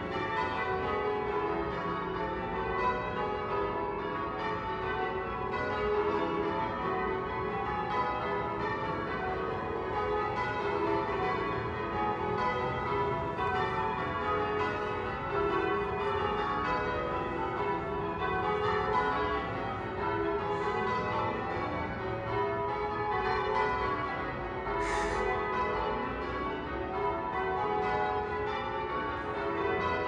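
St Mary de Castro's church tower bells being rung in English change ringing: a steady, unbroken run of overlapping bell strikes.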